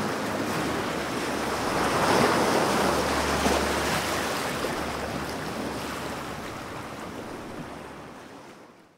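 Sea waves washing, with wind on the microphone, swelling about two seconds in and then fading out to silence near the end.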